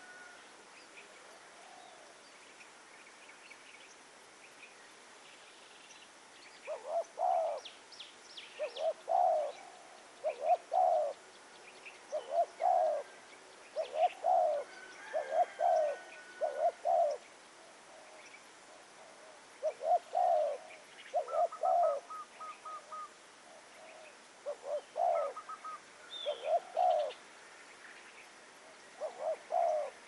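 Spotted dove cooing: short, low coo phrases repeated in groups with brief pauses, starting about seven seconds in.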